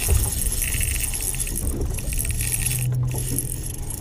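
Spinning reel being cranked while playing a hooked fish, its gears giving a fast whirring tick in a spell about a second in, over a low steady hum.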